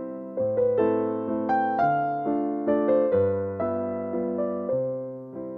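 Background music: struck keyboard notes and chords that ring and fade away, a new one every half second or so.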